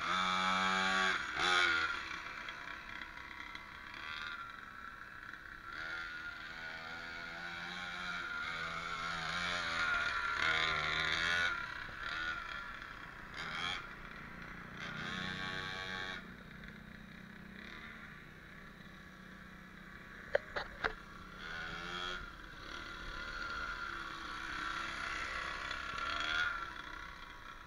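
Mini cross pocket dirt bike's small engine buzzing, its pitch rising and falling again and again as the throttle opens and closes. Two sharp clicks come about two-thirds of the way through.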